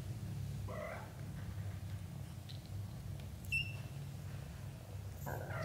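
Young British shorthair kittens giving short, high mews: one about a second in, a thin high squeak midway, and another near the end, over a steady low hum.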